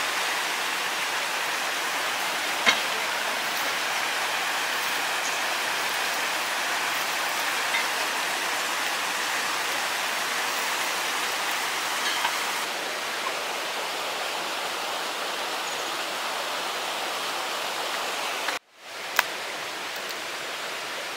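Rushing water of a rocky mountain stream and waterfall: a steady hiss, broken by a couple of sharp clicks. It drops out for a moment near the end, then the water continues.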